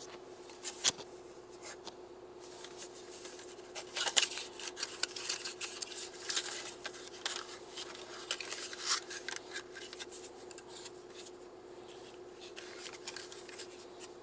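A small cardboard box being opened by hand and its paper inner tray slid out: irregular rustling, scraping and light clicks, busiest in the middle and again near the end, over a faint steady hum.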